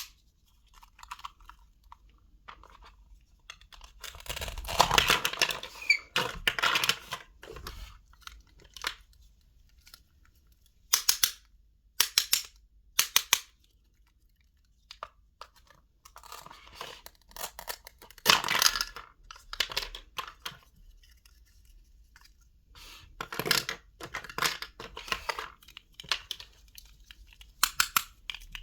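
Bursts of short, crisp tearing and crunching noises from small kitchen items being handled and cut, in several clusters separated by quiet gaps.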